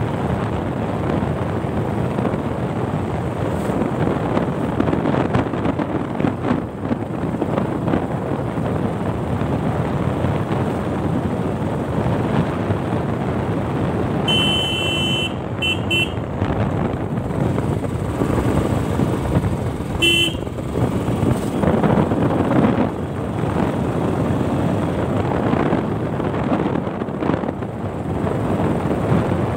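Motorcycle running at riding speed with steady engine and road noise, and a horn sounding about halfway through: one longer beep followed by two short ones, then one more short beep a few seconds later.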